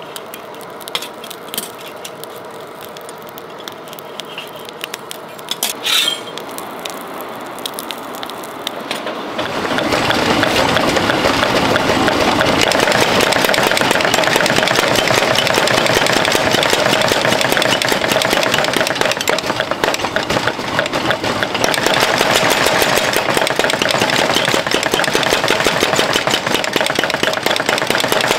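Light metallic clinks of tongs shifting iron in the coal forge, with one louder clank about six seconds in. About nine seconds in, a mechanical power hammer starts pounding in a rapid, steady run of blows, forging the red-hot tine of a pitchfork.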